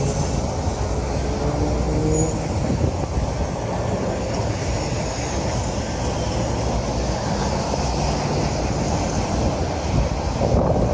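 Car running, heard from inside: a steady low engine and road rumble, with an engine note rising slowly over the first couple of seconds.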